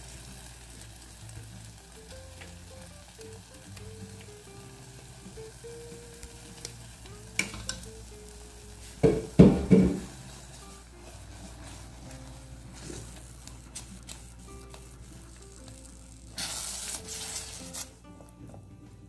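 Silicone spatula stirring and scraping thick prune-jam purée in a pot on the stove, with a soft sizzle from the heating mixture. A few louder knocks come about halfway through, and a short burst of louder hissing comes near the end.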